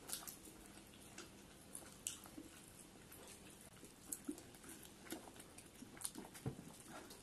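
Faint chewing and mouth noises of people eating momos fast, with scattered small clicks and taps.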